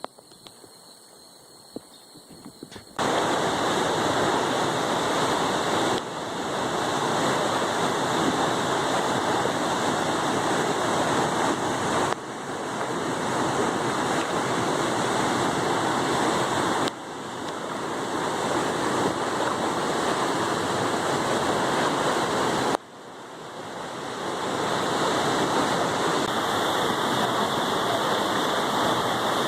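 Steady rush of a waterfall, loud and even, setting in suddenly about three seconds in after a quieter stretch with faint high steady tones. It dips briefly and swells back every five or six seconds.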